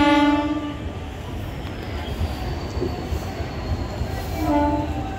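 Indian Railways passenger coaches rolling past with a steady low rumble. A train horn sounds at the start, stopping about a second in, and sounds again near the end.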